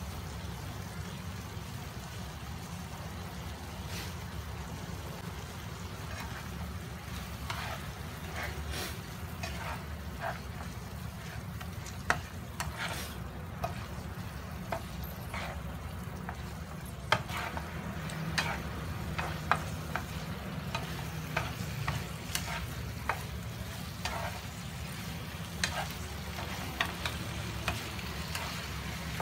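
Chicken pieces and sliced onion frying in a nonstick pan while a spatula stir-fries them. Sharp, irregular taps and scrapes of the spatula against the pan come from several seconds in, over a steady low hum.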